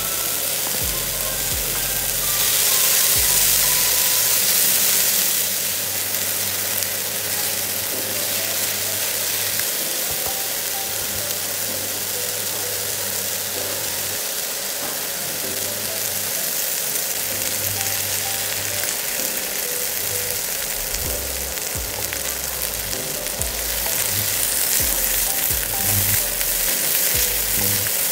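Frozen sweet corn kernels sizzling in a hot non-stick pan with melting margarine while a spatula stirs them. The sizzle is a steady hiss that swells louder for a few seconds near the start and again near the end.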